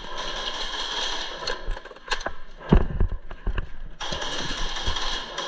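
Footsteps and gear knocking as an airsoft player moves quickly around the cubicles, with one loud thump a little past halfway, over a steady background hiss.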